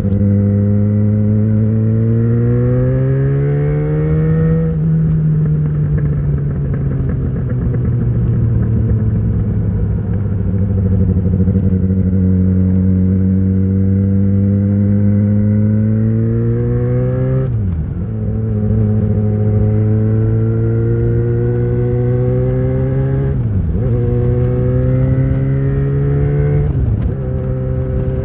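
2013 Yamaha XJ6's 600 cc inline-four running through an Ixill full exhaust with the dB killer fitted, under way. The revs climb for the first few seconds, ease off and hold, then build again in the second half with three quick upshifts, each a short sharp dip in revs.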